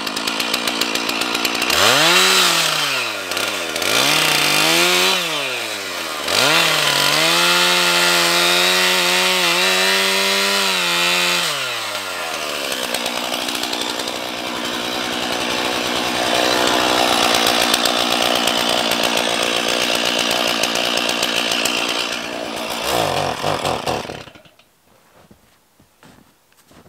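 Two-stroke chainsaw revving up and down several times, then held at high revs for about five seconds while cutting fallen poplar branches. It drops back to a lower, steady running speed about twelve seconds in and cuts off near the end.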